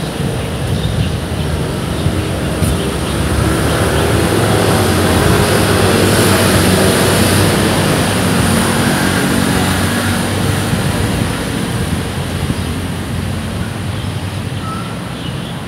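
An engine passing by. Its noise and low hum build up over a few seconds, are loudest in the middle, then slowly fade.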